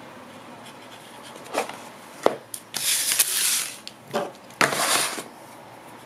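Handling noise from a folding knife with grippy textured G10 scales: a couple of sharp clicks, then two rasping rubs of hands against the handle, about a second apart.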